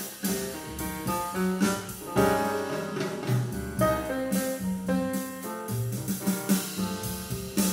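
Instrumental music with piano and drums, with a steady beat.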